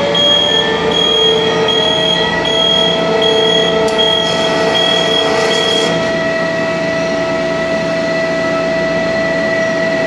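Refrigerated compressed-air dryer running with its refrigeration compressor on and condenser fan off, pulling the evaporator down to about 3 °C: a steady machine hum and whine, one tone slowly rising in pitch. A high pulsing tone runs over it until about six seconds in.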